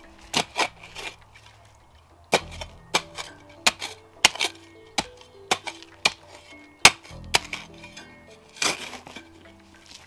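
Cold Steel Spetsnaz shovel chopping and digging into stony soil: a string of sharp, clinking strikes about one to two a second, over soft background music.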